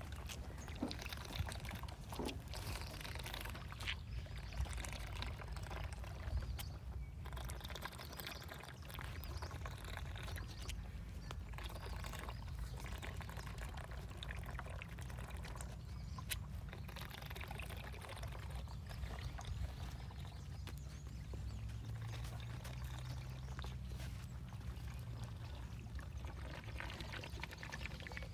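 Elephant calf drinking milk from a large hand-held bottle: the milk gurgles and sloshes as it sucks, with scattered sharp clicks.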